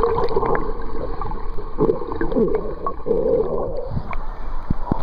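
Water splashing and gurgling, uneven and continuous, with a few short knocks.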